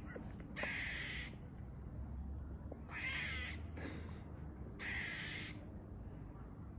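Squirrel giving three harsh alarm calls, about two seconds apart, each lasting about half a second.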